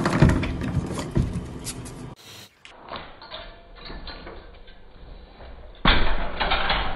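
Knocking and scuffling, then, from about six seconds in, a sudden loud rattling of a metal safety gate as a cat climbs up it.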